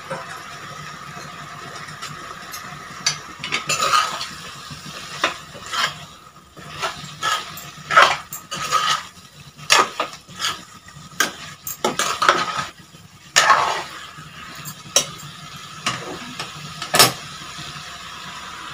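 A metal spoon scraping and clanking against a steel kadai as jackfruit pieces are stirred into thick masala, in irregular knocks and scrapes that start about three seconds in.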